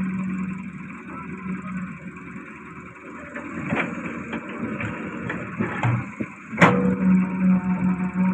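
Daewoo Solar 130 wheeled excavator working: its diesel engine runs under hydraulic load while it dumps a bucket of soil into a tractor trolley and swings back to dig. Several knocks and clanks come through the middle, then one sharp bang about two-thirds of the way in, after which the engine hum comes back strong and steady.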